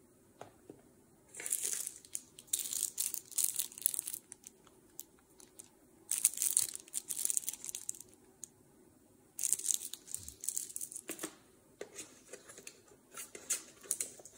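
Small clear plastic zip-lock bag crinkling as it is handled in the fingers, in four bursts of one to three seconds, with a light knock or two in between.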